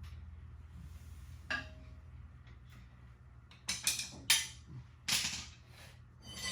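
Metal hand tools and parts clinking and clanking as they are handled, a single clink with a short ring about one and a half seconds in, then a run of sharper clanks from past the middle. A steady low hum underneath.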